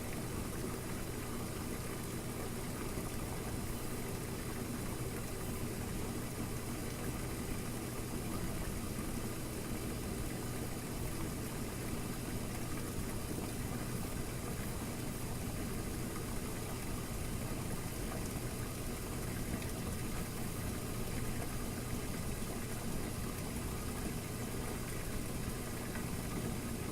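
Washing machine running steadily, a constant low motor hum with a noisy wash of sound over it.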